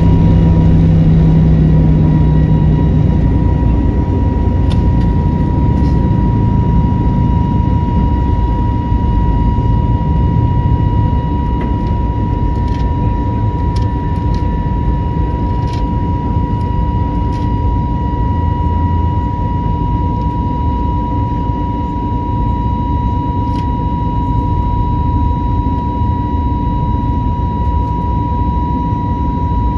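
Airbus A321neo cabin in flight after takeoff: a steady low rumble of the jet engines and airflow with a steady high-pitched whine over it. A lower hum stops about three seconds in.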